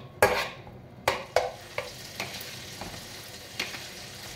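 A utensil stirring in a metal pot and knocking against it several times, the loudest knocks in the first second and a half, over a steady sizzle of food frying on the hob.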